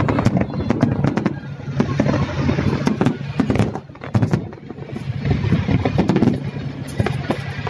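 Fireworks crackling and popping in rapid, irregular bursts, with a steady low hum underneath.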